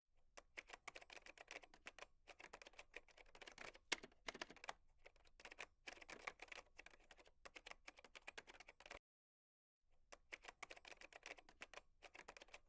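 Fast typing on a computer keyboard: a dense, uneven run of key clicks that stops dead for under a second about nine seconds in, then resumes.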